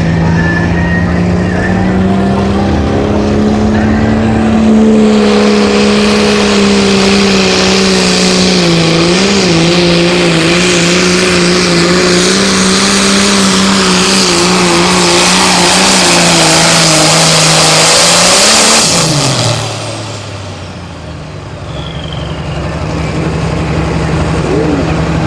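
John Deere pulling tractor's engine running at full throttle with a steady high note while it drags the weight-transfer sled, joined by heavy tyre and dirt noise. About three-quarters of the way through the pull ends: the engine is let off, its pitch drops, and it settles to a lower idle.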